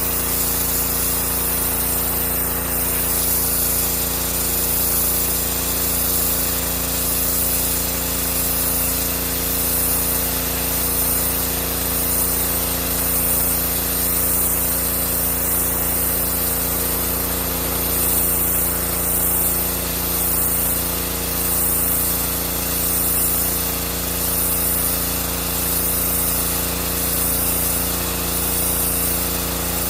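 Pressure washer running: a steady machine hum under the hiss of high-pressure water spray, swelling and easing gently every second or two.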